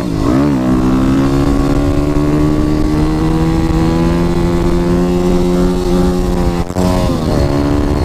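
Yamaha WR250R supermoto's 250 cc single-cylinder engine pulling hard on the road: after a brief dip and recovery in revs at the start, the pitch climbs slowly and steadily for several seconds, then cuts out briefly and drops for an upshift before holding steady again.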